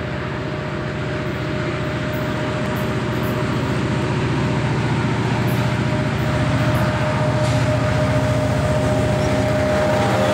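Diesel freight locomotives approaching and passing close, their engine drone growing steadily louder, with a steady whine over the rumble.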